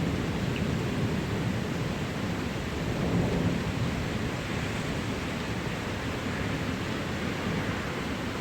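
Thunder rumbling low over a steady hiss of rain, swelling briefly about three seconds in and slowly easing off.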